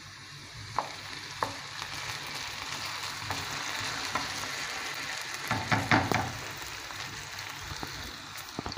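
Diced potatoes sizzling as they fry in hot oil in a frying pan. A wooden spoon knocks and scrapes against the pan as they are stirred, with a cluster of knocks a little past halfway.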